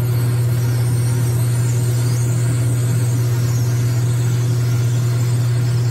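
Logan 6560 metal lathe running with a steady hum while a drill in the tailstock bores into a spinning nylon bar.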